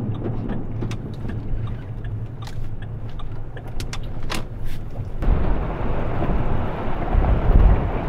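A car running, heard from inside: a steady low engine and road hum with a few sharp clicks and knocks. About five seconds in, a louder rushing noise with a heavy, uneven low rumble takes over.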